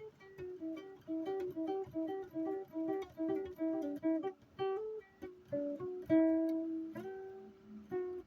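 A plucked acoustic string instrument played note by note: a quick repeating pattern of alternating picked notes, then slower notes left to ring near the end.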